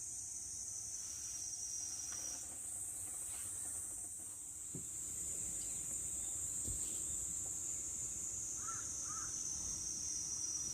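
A steady, high-pitched chorus of night insects, crickets or similar, shifting slightly in pitch. Two brief calls come close together near the end.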